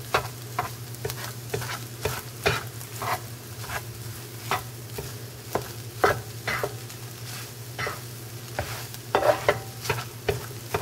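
A spatula scraping and tapping against a skillet as it chops through cooked rice and scrambled egg to separate the grains, in irregular strokes about one or two a second, with a light sizzle of frying underneath.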